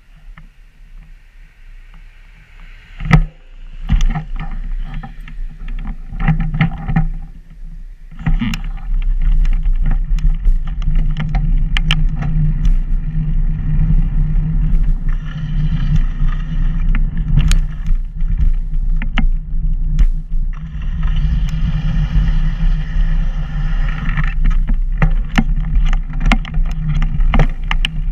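Wind buffeting and a rolling rumble on a moving, low-mounted action camera travelling along pavement, with scattered clicks and rattles from bumps. It is fairly quiet at first, with a sharp knock about three seconds in, and the steady loud rumble sets in about eight seconds in.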